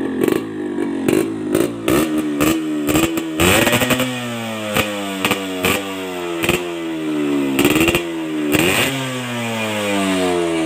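Yamaha RX135's ported 135 cc two-stroke single running through a custom-built chamber exhaust, revved in repeated throttle blips that rise quickly and fall back slowly, with sharp pops between them and two bigger revs, about a third of the way in and near the end.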